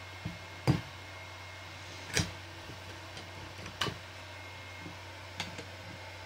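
About four short, sharp clicks or taps spaced over a few seconds, the first the loudest, over a steady low electrical hum.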